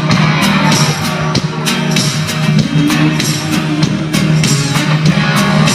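Live band playing an instrumental passage with no singing: drums striking a steady beat under a sustained low bass and guitar.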